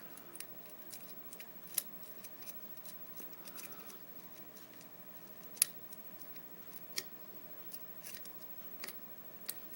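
Lock pick and tension wrench working the pins of a pin-tumbler lock: scattered light metallic clicks and ticks as pins are lifted and set, a few of them sharper, about two seconds in, past five seconds, at seven and near the end.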